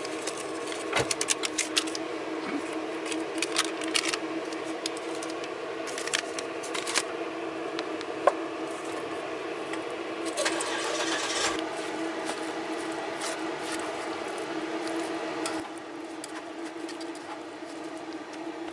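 Cooking-prep handling sounds: light clinks, knocks and scrapes of utensils and food going into a metal pot, with a longer run of scraping about ten seconds in. A steady motor hum runs underneath and drops in level about fifteen seconds in.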